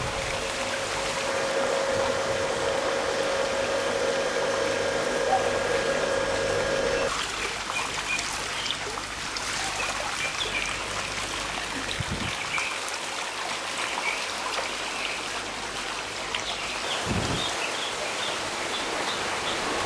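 Pool water trickling and splashing steadily, with a steady hum that cuts off about seven seconds in. From about nine seconds on, small birds chirp repeatedly over the water.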